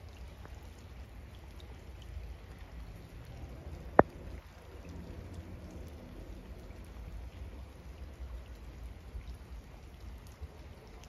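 Rain pattering on wet brick paving, a steady hiss with scattered drop ticks over a low rumble. A single sharp click comes about four seconds in.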